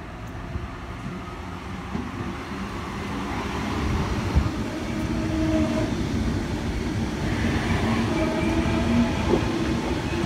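A Sydney Trains H-set 'Oscar' electric multiple unit pulling out and passing close by. Its wheels rumble and click over the rails, getting louder over the first few seconds, with a steady whine over the rumble in the second half.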